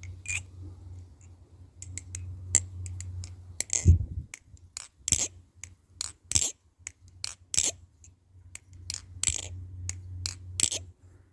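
Squid Industries Kraken 2.5 balisong with a Bowie blade being flipped: a run of sharp clicks and clacks, irregular, about two a second, as the handles swing around and knock against the pins.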